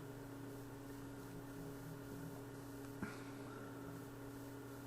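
Steady electrical hum, with one faint click about three seconds in.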